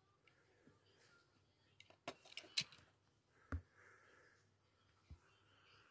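Mostly quiet, with faint clicks and taps from a die-cast toy car being handled by fingers, and one sharper knock about three and a half seconds in.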